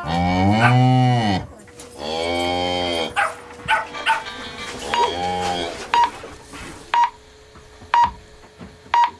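A cow lowing three times, each moo a long call that rises and falls. Then the short, high pips of a radio time signal, about one a second.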